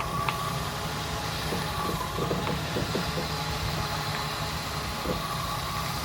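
Jeep CJ5 engine running steadily, with a strange irregular popping: short sharp pops come unevenly, clustered a second and a half to three seconds in and once more near the end.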